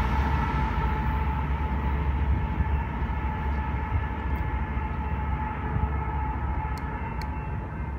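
Union Pacific freight train with a locomotive at its rear rolling away, a steady low rumble with a steady high ringing tone over it, slowly fading as it recedes.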